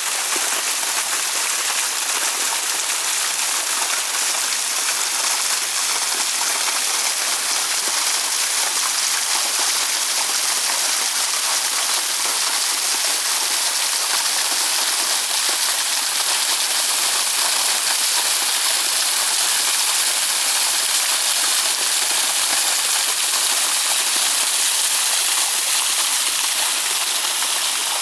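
Waterfall: water pouring and splashing in a steady, constant rush of hiss.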